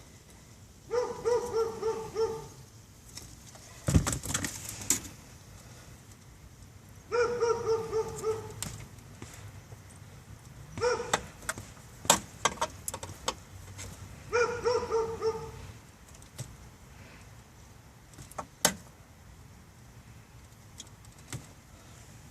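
A dog barking in four short bursts of quick, repeated barks, with sharp clicks and knocks in between from handling tools and wiring, the loudest about four seconds in.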